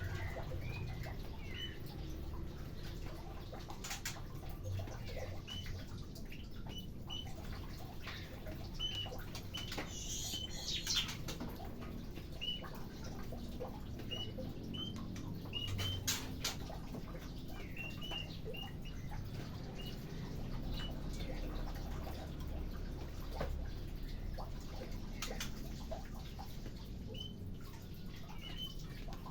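Birds in an aviary giving short rising chirps again and again, singly and in quick runs, as they are fed. A steady low rumble lies underneath, and a few sharp clicks come through.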